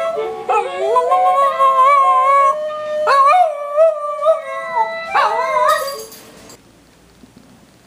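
Dachshund howling: a run of long, wavering howls that rise and fall in pitch, stopping about six seconds in.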